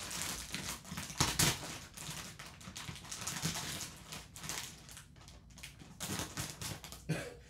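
Clear plastic wrapping crinkling and crackling as it is cut and pulled open by hand, loudest about a second in.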